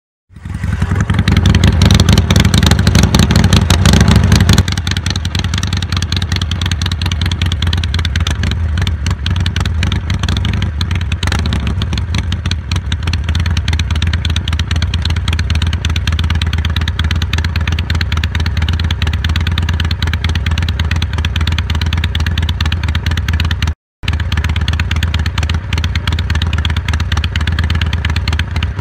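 Harley-Davidson Iron 883's air-cooled V-twin with a Jekill & Hyde valve-controlled exhaust, starting up loud out of silence. After about four seconds it settles into a steady, lower, lumpy idle. The sound cuts out briefly once near the end.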